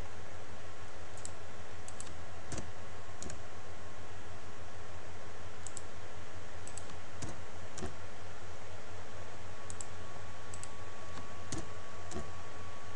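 Scattered clicks of a computer mouse and keyboard, some in quick pairs, over a steady low electrical hum. A faint steady tone comes in about two-thirds of the way through.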